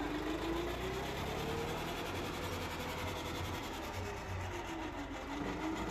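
Eicher 380 tractor's diesel engine running steadily, with a whine that slowly rises and falls in pitch twice as the engine speed and load change.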